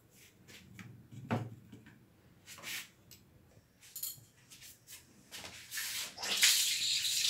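Scattered light knocks and clicks of hands and a utensil on a plastic cutting board. About five and a half seconds in, a steady hiss starts and quickly grows loud.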